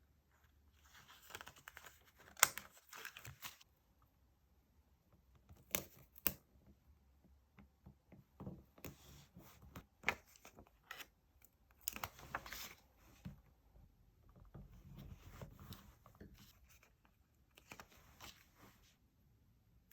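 Paper and stickers being handled: intermittent short bursts of rustling and peeling, with a few sharp clicks scattered through.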